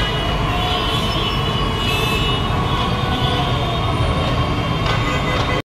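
Dense city street traffic: a steady din of auto-rickshaw, motorbike and car engines, with horns sounding over it. It cuts off suddenly near the end.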